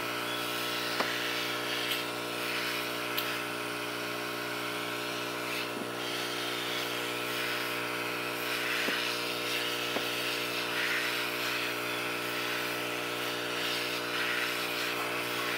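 Hot air rework station blowing through its nozzle: a steady motor hum with an airy hiss, heating a cracked phone touchscreen to soften its adhesive for removal.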